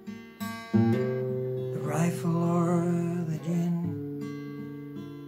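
Acoustic guitar strumming chords, with a man's voice singing a held, wavering line about two seconds in; near the end a last chord is struck and left to ring out and fade.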